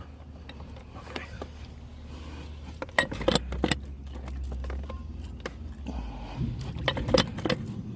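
Clicks and knocks of a threaded fitting being forced by hand onto a 4-inch irrigation mainline pipe, the threads not starting cleanly, over a steady low hum. One cluster of clicks comes about three seconds in and another near the end.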